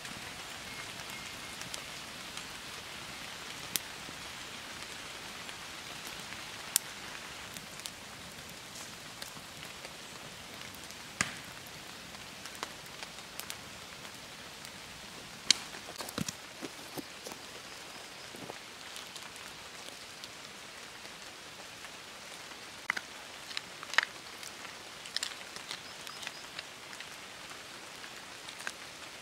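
Steady rain pattering on leaves and grass, with scattered sharp pops and crackles from a small wood campfire.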